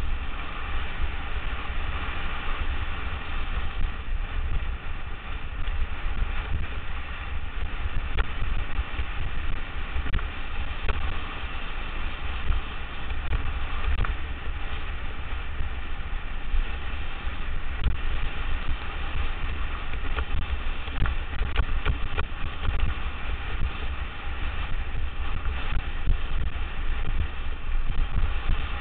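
Motorbike engine running steadily at speed, with heavy wind buffeting on the microphone.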